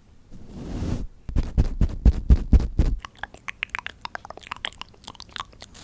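Close-miked ASMR trigger sounds: a brief swish, then a quick run of thuds and crunchy clicks, giving way to many crisp, rapid taps and clicks.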